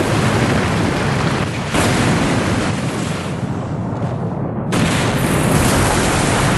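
Sound effect of a building collapsing: a loud, continuous rumbling crash of falling masonry, with fresh surges about two seconds in and again near five seconds.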